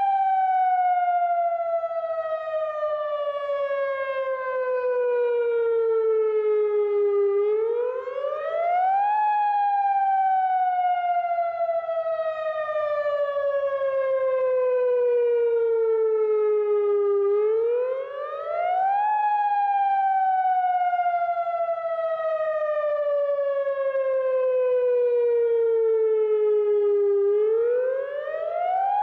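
Federal Signal Modulator 8032B outdoor warning siren sounding the wail signal. The pitch climbs quickly over about two seconds, then slides slowly down for about eight seconds, repeating about every ten seconds.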